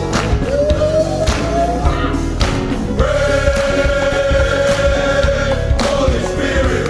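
Men's gospel choir singing with a live band, drums hitting steadily under the voices; the choir holds one long note through the middle.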